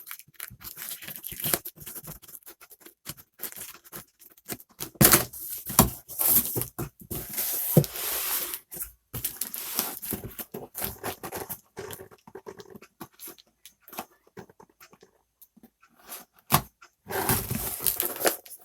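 Cardboard fan carton being opened by hand: packing tape tearing and cardboard scraping and rustling in irregular bursts, with a longer tearing stretch a third of the way in.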